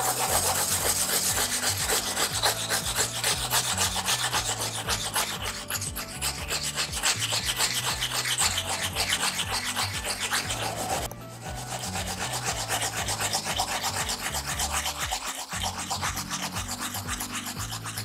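Turnip being grated on a flat metal grater: rapid, steady rasping strokes, with a short pause about eleven seconds in.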